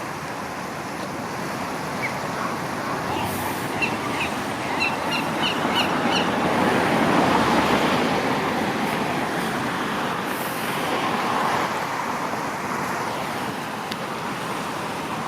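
Steady rush of road traffic that swells and fades, peaking about halfway through. A bird gives a quick run of short high chirps a few seconds in.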